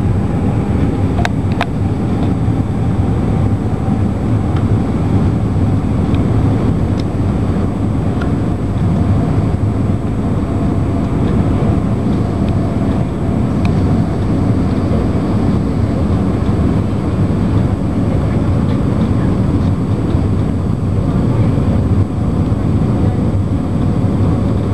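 Steady cabin noise inside an Airbus A320 on its landing approach: the constant low sound of the engines and the rushing air, unchanging throughout.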